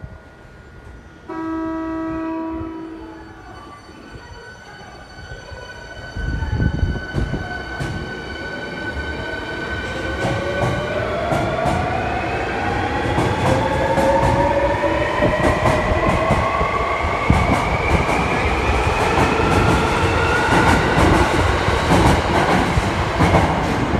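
A steady horn tone lasting about two seconds. Then a Hankyu 1300 series electric train pulls away: a low rumble begins about six seconds in, wheels click over rail joints, and the traction motors' whine rises steadily in pitch as it accelerates.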